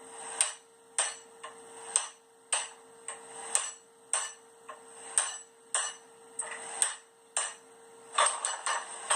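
Blacksmith's hammer striking steel on an anvil, about two blows a second with the anvil ringing on between them, then a quick run of lighter taps near the end.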